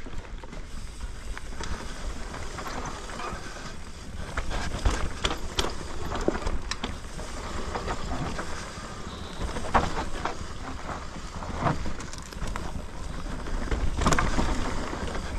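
Mountain bike rolling fast down a dirt forest trail: a steady rough noise of tyres on the ground, with frequent sharp knocks and rattles as the bike goes over bumps. Wind rumbles on the camera microphone underneath.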